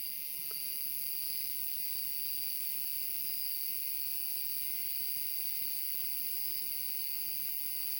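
Night-time chorus of crickets: a steady, unbroken high-pitched trilling.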